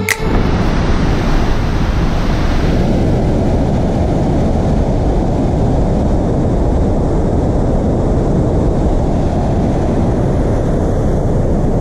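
Kern River running high and fast through whitewater rapids, a steady rushing of water, with wind on the microphone.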